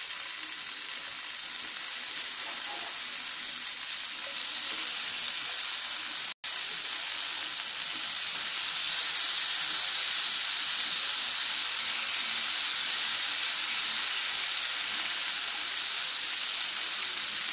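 Marinated cauliflower, onion and capsicum pieces sizzling in hot mustard oil on a grill pan as more pieces are laid in: a steady frying hiss that gets a little louder about eight seconds in. The sound breaks off for an instant about six seconds in.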